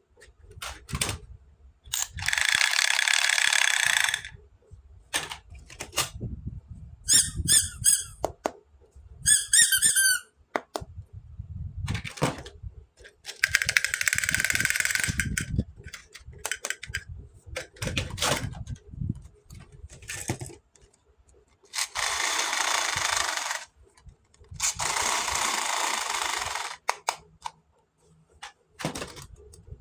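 Handling of plastic toys and packaging during an unboxing: scattered plastic clicks and knocks, two quick rattling runs of clicks, and four rustling or tearing noises of about two seconds each.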